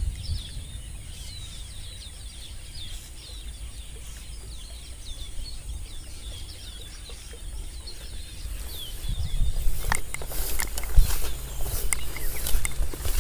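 Birds chirping over and over in short, high, falling notes. About ten seconds in, louder rustling and crunching of grass and footsteps take over as someone walks through the undergrowth.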